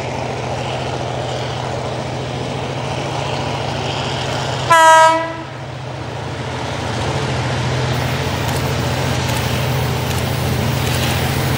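Diesel locomotive R40 approaching at the head of a long freight train: its diesel engine runs with a steady low drone that grows louder from about seven seconds in. About five seconds in it sounds one short blast of its horn, the loudest thing here.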